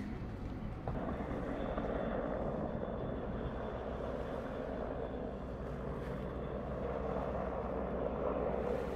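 A steady engine drone: a motor running at an unchanging speed, with a low hum under it, becoming a little louder about a second in.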